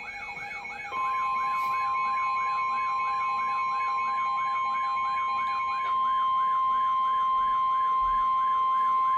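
Electronic alert tones from a radio: a yelping tone that sweeps up and down about three times a second. About a second in it is joined by a steady single tone at about 1050 Hz, the NOAA Weather Radio warning alarm tone that comes before a broadcast alert message.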